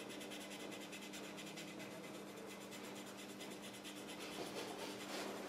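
Stiff paintbrush scrubbing in quick, repeated strokes over the painted plastic skin of an aircraft scale model, a faint dry scratching rub. The scrubbing wears the top paint away to make chipping.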